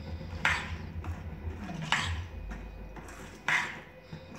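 A ladle stirring thick rice batter in a stainless steel bowl, knocking against the side of the bowl three times, about a second and a half apart, each knock ringing briefly.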